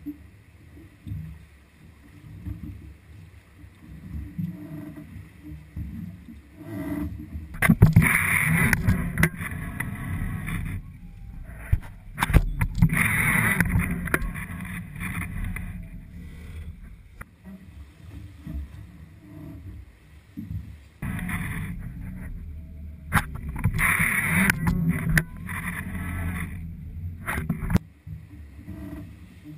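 Water sloshing and slapping against an aluminum boat hull, swelling into several loud splashy surges over a steady low rumble.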